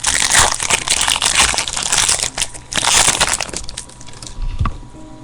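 Trading-card pack wrapper being torn open and crumpled, crackling loudly for about three and a half seconds, then a soft thump near the end.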